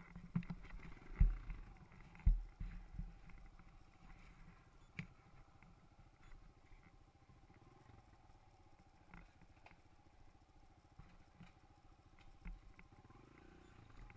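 Dirt bike engine running as the bike rides a forest trail, heard from the rider's helmet. Two heavy low thumps come a little after one and two seconds in, with a few lighter knocks later.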